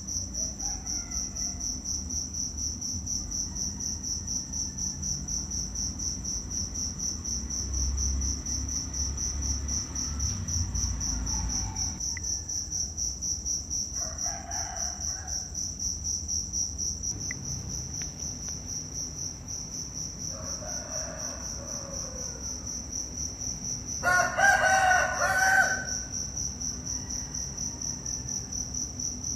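Insects chirring steadily in a high-pitched, rapidly pulsing drone. Near the end a rooster crows once, loudly, for about two seconds.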